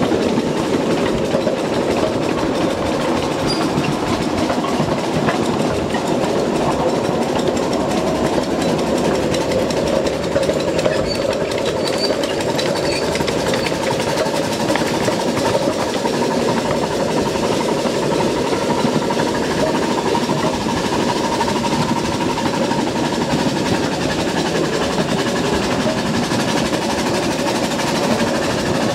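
Ridable scale train running along its track, heard from aboard: a steady rattling rumble of the wheels and cars on the rails, unbroken throughout.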